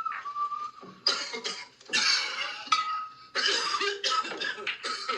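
A man in an uncontrollable coughing fit: harsh, hacking coughs in three bouts, the longest near the end.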